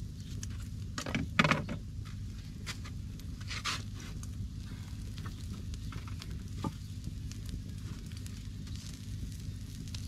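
Wood fire crackling and sizzling under a sheep's head being singed on a grill, over a steady low rumble. A louder burst of popping comes about a second in, and single sharp cracks follow later.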